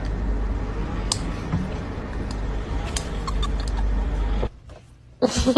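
A steady low rumbling noise with a few light clicks, cutting off suddenly about four and a half seconds in.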